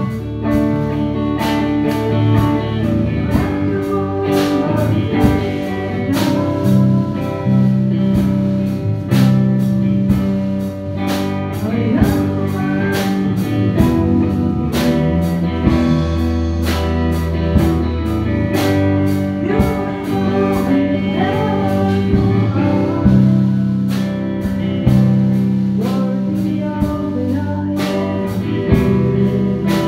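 Live worship band playing a slow praise song: electric guitar, drum kit and keyboard, with a man singing the melody into a microphone.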